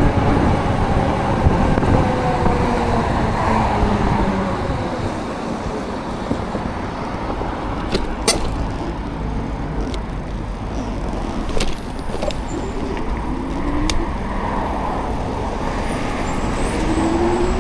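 Road traffic passing on a wet street, heard from a moving e-bike over a steady low rumble. A few passing vehicles slide in pitch near the start and the end, and a few sharp clicks come in the middle.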